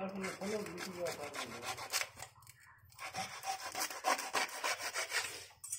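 Hand-held hacksaw blade cutting through a PVC pipe in quick back-and-forth strokes, with a short pause about two seconds in before the sawing resumes.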